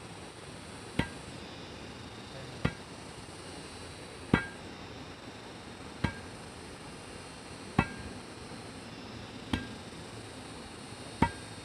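Hammer blows, seven at an even, unhurried pace of about one every 1.7 seconds, each with a brief metallic ring.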